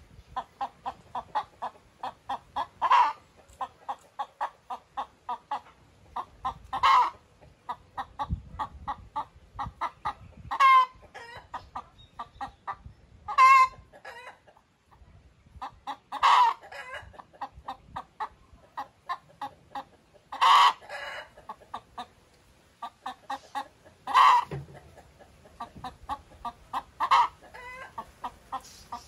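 Naked-neck hen cackling: a steady run of short clucks, about four a second, building every three to four seconds into a loud, drawn-out squawk.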